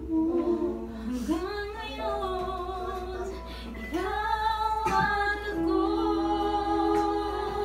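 A woman singing a slow song karaoke-style, holding long notes over music.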